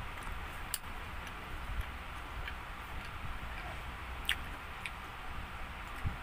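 Quiet close-miked eating and handling noises: a few scattered sharp little clicks over a steady low rumble.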